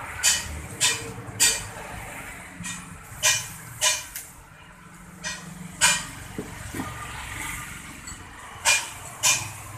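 Sharp metal knocks, about ten at irregular intervals, some in pairs about half a second apart, over a low steady rumble: the clatter of steel wheels being handled and struck in a tyre repair shop.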